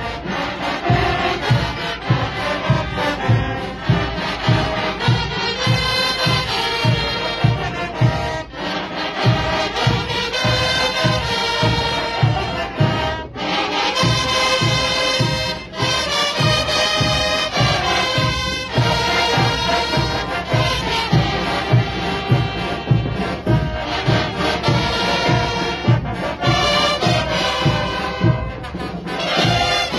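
School brass band playing: massed trumpets and other brass holding a melody over a steady drum beat of about two beats a second.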